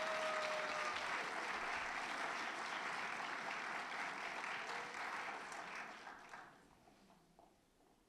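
Audience applauding, fading out over about a second and dying away roughly six and a half seconds in.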